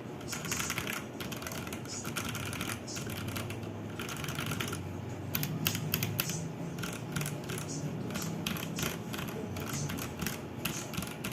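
Zifriend T62 mechanical keyboard being typed on. A quick run of keystrokes gives way, about five seconds in, to slower, more separate key presses.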